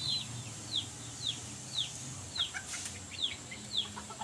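Chicks peeping: a high, short peep that falls in pitch, repeated about twice a second.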